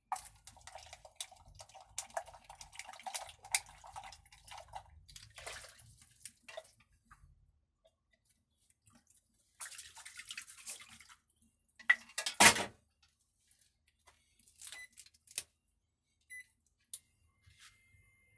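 A utensil stirring a thin cornstarch-and-flour liquid in a wok, with liquid swishing and light scraping for the first five seconds. After a pause there is a short rush of noise, then a sharp knock about twelve seconds in, the loudest sound.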